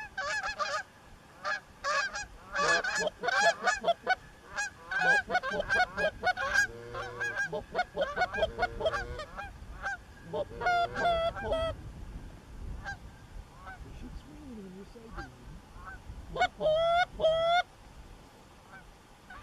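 Canada geese honking, many short honks in quick runs, thinning out, with three louder honks near the end.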